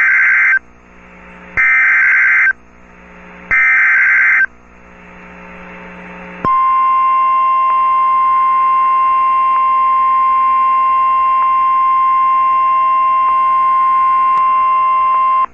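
NOAA Weather Radio Emergency Alert System signal: three one-second bursts of SAME digital header data, about two seconds apart with radio hiss between them, then the steady single-pitch 1050 Hz warning alarm tone for about nine seconds, which cuts off suddenly. The header and tone announce a Severe Thunderstorm Warning.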